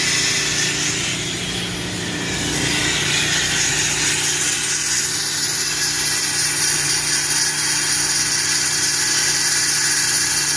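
CNC drilling machine boring holes in a steel plate: a steady motor hum under a hissing metal-cutting noise.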